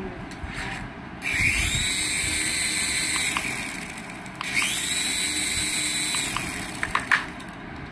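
Small electric motor of a radio-control toy whirring up twice, each run about two seconds: a high whine that rises quickly, holds steady, then winds down.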